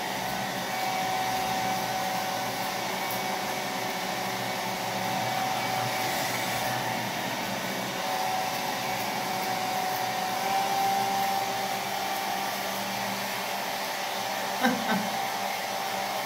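Handheld hair dryer running steadily as it blows on hair: a constant rush of air with a faint steady whine.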